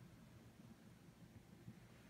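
Near silence: faint room tone with a low steady rumble.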